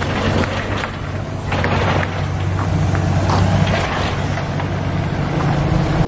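Heavy construction machinery engine running steadily with a low hum, with a few brief knocks over it.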